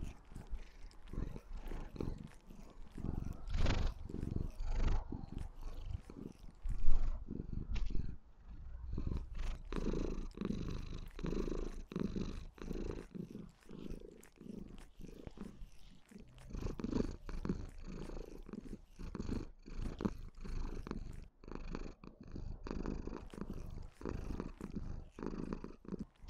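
Maine Coon kitten purring loudly and continuously while having its chin scratched, with a brief louder thump about four seconds in and another about seven seconds in.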